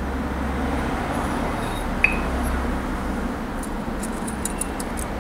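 Small metal carburetor parts clinking as they are handled: one sharp clink about two seconds in, then a quick run of light ticks near the end, over a steady low hum.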